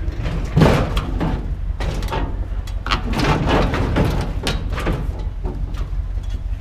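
A heavy piece of scrap metal being shoved and dragged onto a trailer. It scrapes and clatters in two long pushes, each with sharp knocks, over a steady low rumble.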